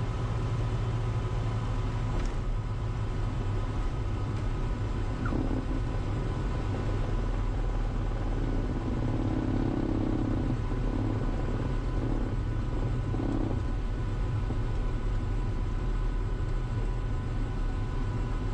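Cirrus SR20's four-cylinder Lycoming IO-390 engine idling steadily, heard from inside the cockpit as the plane rolls out after landing.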